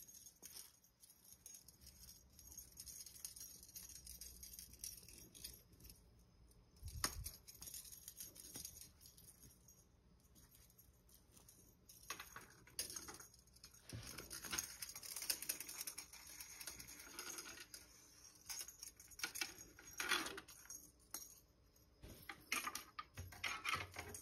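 A feather cat toy is flicked and dragged over a rug, giving faint rustling and light clicking in short, irregular bursts. There is a lull partway through, and the sound gets busier in the second half.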